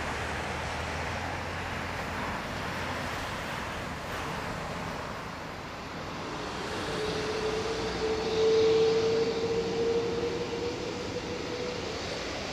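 Boeing 777-200 jet engines running at low power as the airliner taxis: a steady broad rush, with a whine that comes in about halfway through and rises slightly in pitch, loudest a little past two-thirds of the way.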